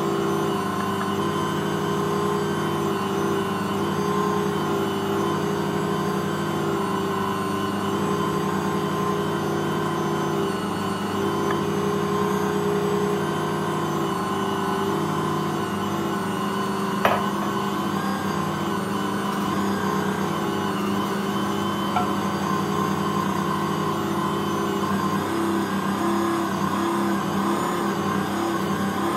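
Ankarsrum 6230 stand mixer running steadily at constant speed, its motor turning the bowl as it kneads bread dough. A single sharp knock comes a little past halfway, and a fainter click a few seconds later.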